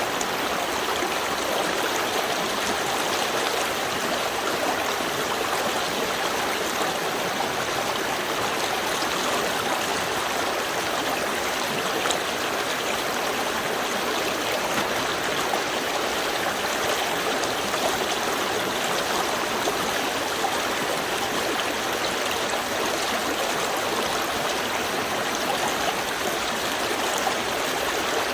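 Small river stream flowing and gurgling over stones: a steady, even rush of water.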